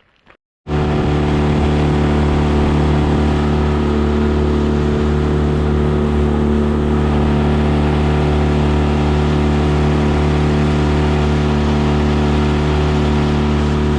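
Boat motor running steadily at a constant speed, starting abruptly about a second in.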